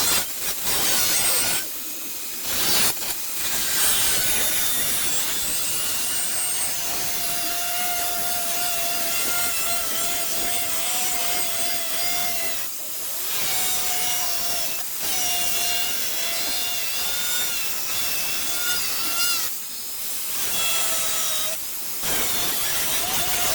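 Power tool cutting sheet metal, a steady rasping hiss over a motor whine that wavers in pitch under load. It stops briefly several times and starts again.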